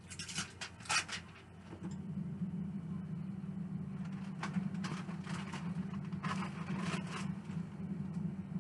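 Kitchen handling noises: a few short clicks and scrapes of cookware, over a steady low hum that starts about two seconds in.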